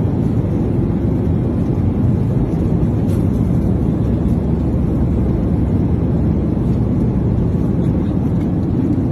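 Airliner cabin noise: a steady low rumble of engines and airflow heard from inside the passenger cabin, without change.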